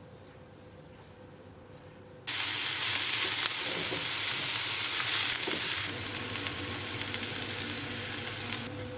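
Food sizzling in a hot oiled frying pan, starting suddenly about two seconds in as a loud steady hiss that eases a little near the end.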